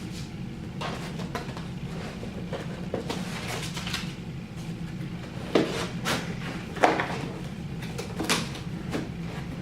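A cardboard product box and its contents being handled and packed: rustling with scattered knocks and taps, the sharpest about five and a half and seven seconds in, over a steady low hum.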